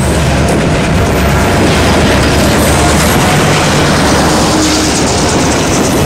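Diesel-hauled freight train of hopper wagons passing close by: a steady, loud engine rumble mixed with the rolling noise of the wagons on the rails.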